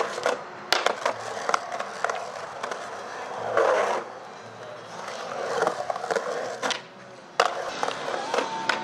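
Skateboard wheels rolling and carving on the concrete of a skatepark bowl, the rolling swelling and fading in waves as the board runs up and down the walls, with several sharp clacks of the board, the loudest a little after seven seconds in.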